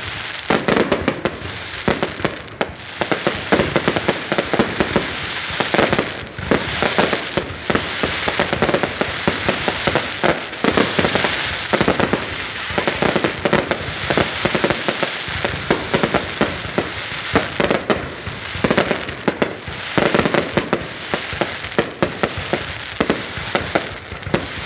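Fireworks going off: a loud, dense, unbroken crackle of rapid bangs and pops.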